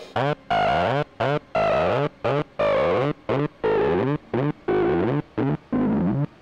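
Distorted acid-style synthesizer sequence whose notes are chopped off abruptly into a stuttering rhythm, with repeated falling sweeps in the tone.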